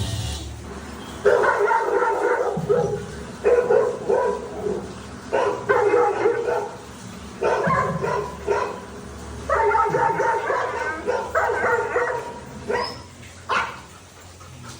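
Labrador retriever barking in a run of drawn-out barks, about one every two seconds, seven in all, the last one short.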